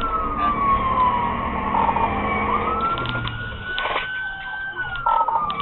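Police car siren on its wail setting, sliding slowly down in pitch, back up about halfway through, and down again, heard from inside the pursuing patrol car over its road noise.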